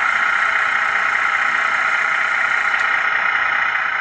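H0 model railway running, with the BR 245 model locomotive on the traverse: a steady, even hum with no change in pitch, and a faint tick about three seconds in.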